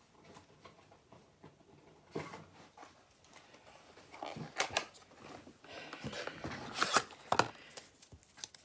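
Hands rummaging among craft supplies: scattered clicks, knocks and rustles of small boxes and packaging being picked up and set down, busier and louder in the second half.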